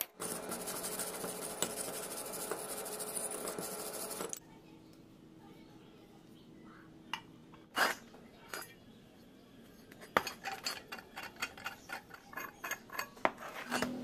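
Steel parts scraping and clinking against each other. A steady rasping scrape runs for about four seconds, then come a few separate clinks and, near the end, a quick irregular run of light metal taps.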